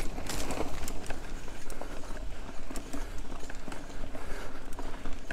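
Mountain bike rolling along a muddy forest dirt track: steady tyre noise on the ground with many irregular clicks and rattles from the bike.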